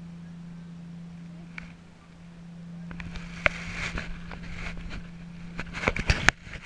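Water sloshing and splashing against a sea kayak's hull next to the deck camera, building from about three seconds in, with a cluster of sharp knocks near the end.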